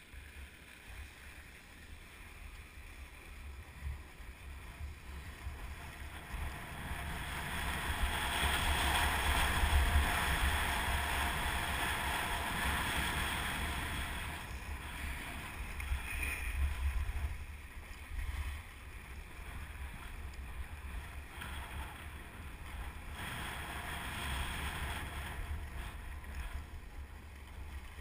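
Skis hissing and scraping over groomed, packed snow during a run, with wind buffeting the GoPro Hero 2's microphone as a low rumble. The rush swells to its loudest from about a third of the way in to about halfway, as speed builds, then eases.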